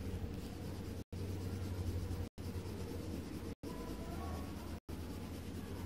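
Colored pencil scratching on paper over a low steady hum. The sound cuts out completely for an instant about every second and a quarter, four times.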